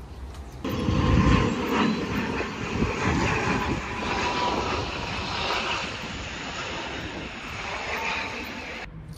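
Wind rushing over a phone's microphone while riding a bicycle, a steady roaring hiss with heavy low buffeting about a second in. It cuts off abruptly near the end.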